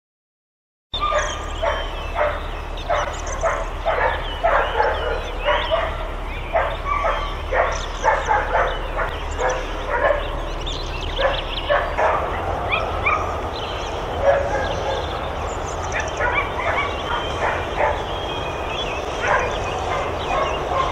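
Many dogs at a boarding kennel barking, a chorus of short overlapping barks over a steady low rumble. The sound starts abruptly about a second in. The barking is densest in the first half and thinner later.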